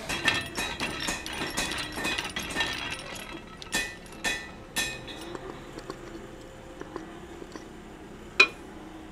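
Metal clinking: a quick run of light, ringing clinks of steel on steel over the first five seconds. After that it is quieter, with one sharp click near the end.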